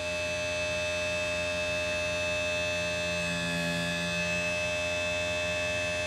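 RC tire truing machine running with a steady electric motor hum and whine, the foam tire spinning with the grooving cutter not yet cutting into it.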